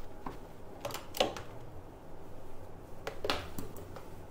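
A few short metallic clicks and clinks of a socket and torque wrench being worked on the bottom bolt of the rear shock, the clearest about a second in and about three seconds in.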